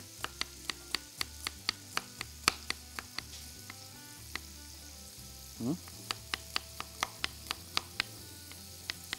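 Chef's knife chopping garlic cloves on a wooden cutting board, about four sharp cuts a second in two runs with a pause between them, over the steady sizzle of sausage frying in a pan. A short rising sound comes just before the second run of cuts.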